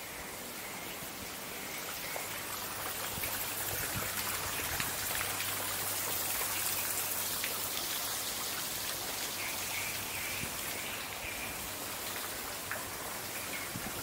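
Steady splashing of water from a garden fountain, growing louder over the first few seconds and easing slightly toward the end.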